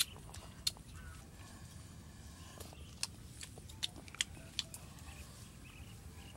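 Lip smacks and clicks of someone eating straight from a roasted green bamboo tube, a scattering of short sharp smacks over a low steady rumble.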